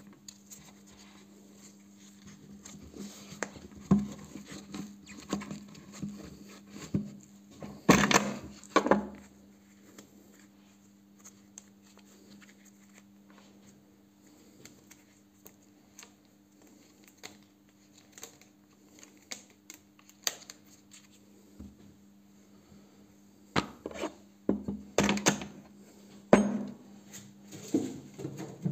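Scattered knocks, scrapes and clatter from handling a cloth-wrapped steel bolt and setting it on a tabletop, in a few louder bursts separated by quieter stretches. A steady low hum runs underneath.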